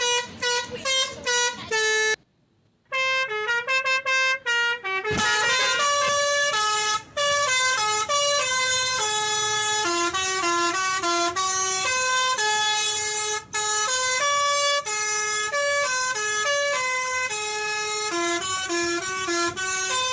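Pianika (melodica) playing a telolet bus-horn melody in the basuri style: a few short notes, a pause about two seconds in, then a fast tune of held and stepping notes. A single sharp knock sounds about five seconds in.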